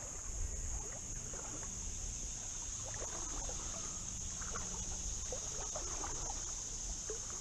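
Creek water splashing and trickling in small irregular bursts, over a steady high-pitched drone of insects.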